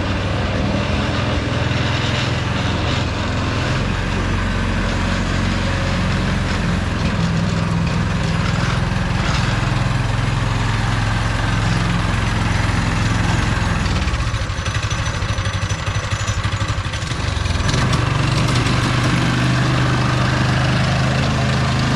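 Small gasoline engine of a chain-driven homemade kid's car running steadily; its note drops back for a few seconds past the middle and then picks up again.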